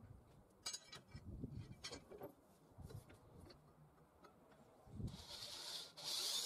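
Light clicks and knocks of sheet-steel parts being handled and fitted against a steel plate. Near the end an electric drill starts boring into steel, a steady hiss.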